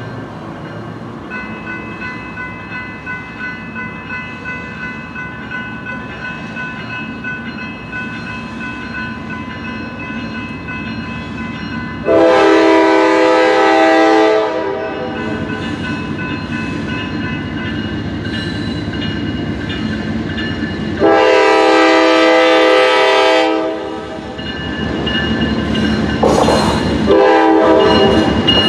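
Grade-crossing warning bell ringing steadily, starting about a second in as the signals activate. An approaching Norfolk Southern freight train's locomotive horn sounds two long blasts, about halfway through and again a few seconds later, then blows again near the end. The train's rumble grows louder as it nears.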